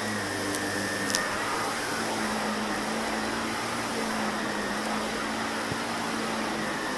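Shark upright vacuum cleaner running steadily on carpet, a continuous motor hum and suction whoosh, with a couple of sharp clicks about half a second and a second in.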